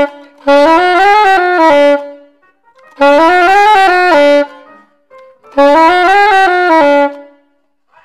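Soprano saxophone playing the same short run of notes three times, each stepping up and back down to where it started, with short pauses between.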